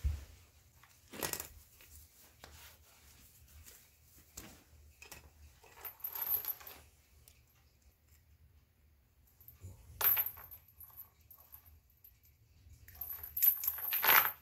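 Steel tire chain being handled, its links clinking and jangling in several short bursts, loudest as the chain is lifted near the end.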